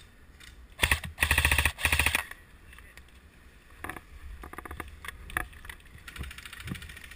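Airsoft gun firing a rapid full-auto burst of about a second and a half, followed by several quieter, shorter rattling bursts.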